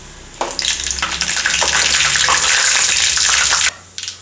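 Tempering spices (cumin, mustard seeds and dried red chillies) sizzling and crackling in hot oil in a pan. The loud sizzle starts about half a second in and cuts off abruptly near the end.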